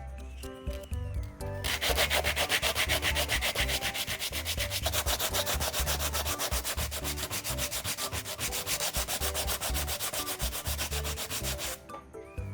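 Sanding the plastic of a car bumper: a rhythmic scratchy rasp that starts about two seconds in and stops shortly before the end, over background music.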